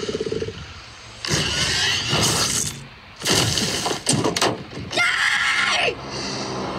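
A monster's short rapid snarl, then a series of loud crashes and breaking impacts as it attacks. Near the end a boy cries out and gasps.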